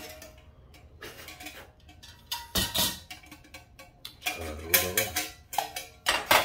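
Nested stainless steel camping pots and mess tins knocking and scraping against each other as they are pulled apart, with a few sharp metal clinks, the loudest near the end.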